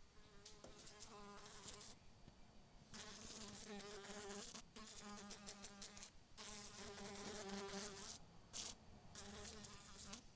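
A housefly buzzing in flight, its wingbeat hum wavering in pitch as it comes and goes. The buzz breaks off briefly several times, as though the fly lands or passes away, then starts again.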